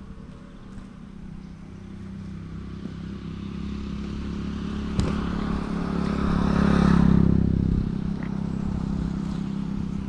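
A motor vehicle's engine running steadily, growing louder to a peak about seven seconds in and then fading somewhat. A single sharp click about five seconds in.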